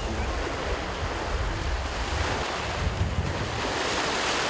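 Sea waves washing onto a beach, a steady rush of surf, with wind buffeting the microphone in a low rumble.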